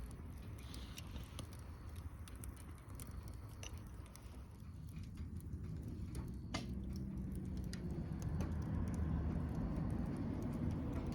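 Wood fire crackling in a fire pit: irregular small pops and snaps, one sharper pop about halfway, over a low rumble that grows louder in the second half.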